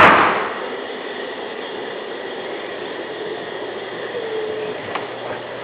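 Steady noise of wine fermenting in large vats, which the listener takes for the fermentation itself. It opens with a sudden loud bump, and a small click comes near the end.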